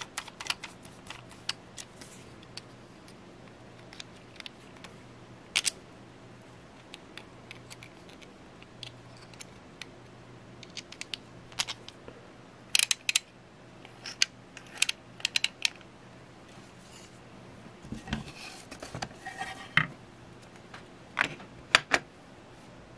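Scattered small clicks and taps as a screw is backed out with a screwdriver and the parts of a homemade ratchet wrench are handled, with busier clusters of clicks about thirteen seconds in and again near the end as the wrench is set into its case.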